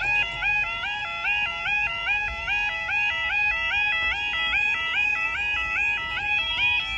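Level crossing audible warning alarm (yodalarm) sounding continuously, its tones switching rapidly between a high and a low pitch in a steady warble.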